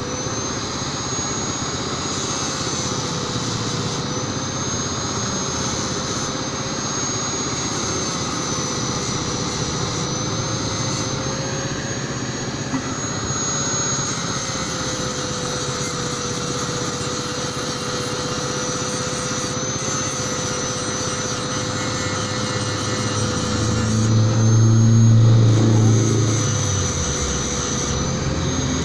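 Electric angle grinder with an abrasive disc running steadily with a constant whine, grinding a stainless steel pipe. It gets louder and deeper for a couple of seconds about three-quarters of the way through.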